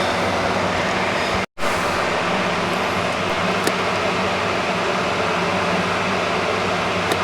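Electric fan running steadily with an even whooshing hum. The sound cuts out completely for a split second about one and a half seconds in.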